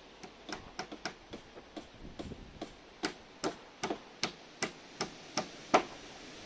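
A hammer nailing into wooden roof battens: a run of light taps, then a series of harder blows about two to three a second, the last one the loudest.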